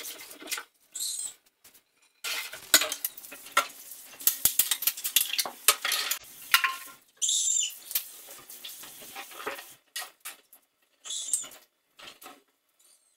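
Dishes and utensils clinking and clattering as they are handled at a kitchen sink, in broken stretches with abrupt gaps between them.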